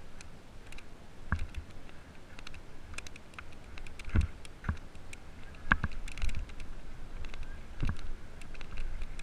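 Mountain bike rolling down a loose gravel trail: tyres crunching over the gravel, with the bike rattling and clicking and a few sharper knocks over bumps.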